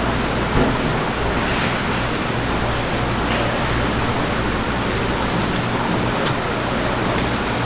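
Steady rushing background noise with a few faint, short scrapes as a knife fillets a yellowtail on a plastic cutting board.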